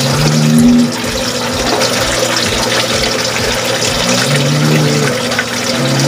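African bullfrog (pixie frog) giving deep, low calls about a second long, three times, while tap water pours steadily into its shallow tub.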